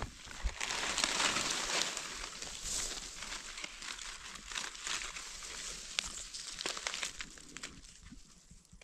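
Dry leaf litter and grass rustling and crinkling as a gloved hand and knife push through them to dig out a red mushroom. Louder for the first couple of seconds, then softer, with scattered small crackles.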